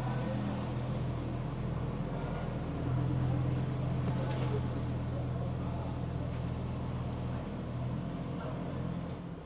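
A steady low mechanical hum that drops away near the end. About four seconds in, a Rolls-Royce Cullinan's door is unlatched and swung open with a faint click.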